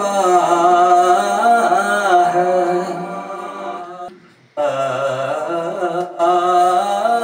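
A man singing a naat, Islamic devotional verse, in long held notes whose pitch bends and wavers. He breaks off for about half a second roughly four seconds in, then goes on singing.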